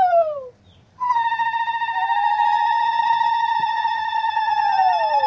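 Conch shells (shankha) blown in long held notes, two overlapping, each sagging in pitch as the breath gives out; a short break about half a second in, then one conch starts again about a second in and a second joins it a second later.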